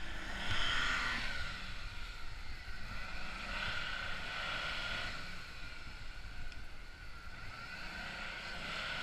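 Lifted Ford Ranger pickup's engine revving in three surges as it crawls over a dirt mound on the trail.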